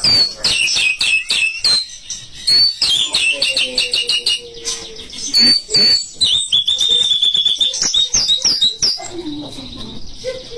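White-rumped shama (murai batu) singing a fast, varied song of chirps, trills and whistles, with a long steady whistle in the middle.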